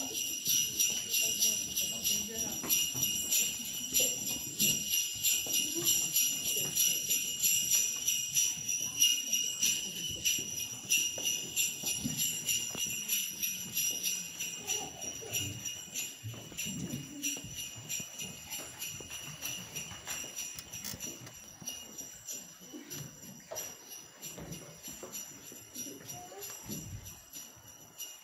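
Jingle bells shaken over and over in a quick, steady rhythm, slowly growing fainter.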